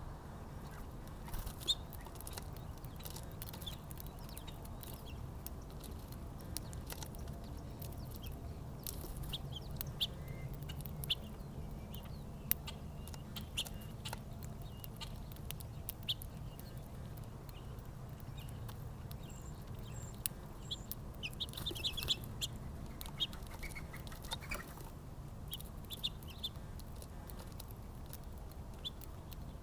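Small birds at a backyard feeder: scattered short chirps and sharp clicks throughout, busiest about three-quarters of the way in, over a low steady hum.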